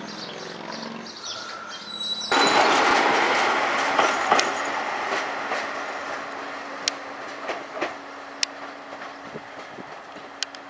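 Bombardier AGC diesel railcar approaching on curved track: a loud rumble of running noise that eases off, with wheels clicking over the rail joints and a steady hum underneath. For the first two seconds before it, a soft low hum with faint bird chirps.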